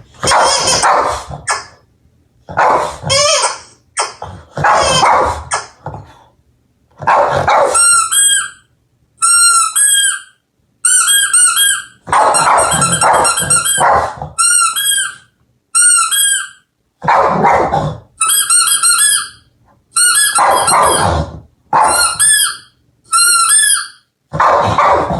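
A squeaky toy squeaking in quick runs of short, high, bird-like chirps, alternating with harsher bursts of a Boston terrier barking.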